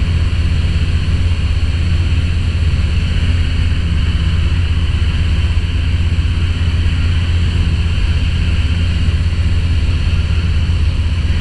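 Microlight aircraft's engine and propeller running steadily in cruise flight, heard from inside the cockpit: a deep, even drone with a hiss above it.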